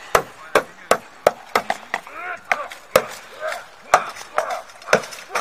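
Sword fight with steel swords striking a wooden heater shield and each other: a quick, irregular run of about ten sharp knocks and clashes.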